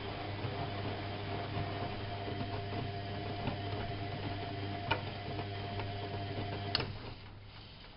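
Whirlpool AWO 5346 front-loading washing machine running with a steady hum. A sharp click comes a little before the end, and the hum stops.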